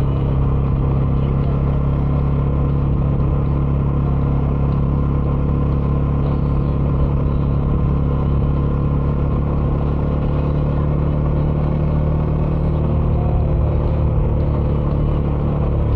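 Bajaj Dominar 400's single-cylinder engine running through its stock dual exhaust while riding, holding a steady pitch with no revving or shifting.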